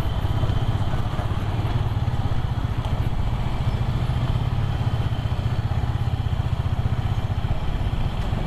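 Motorcycle engine running steadily at low road speed, a low, fast, even pulsing note, with some road noise over it.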